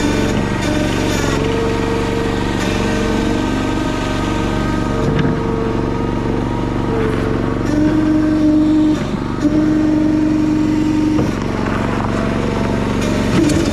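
Single-cylinder Honda GX390 engine fitted in a John Deere 60 skid steer, running steadily at a constant speed. A higher whine comes and goes a few times over it.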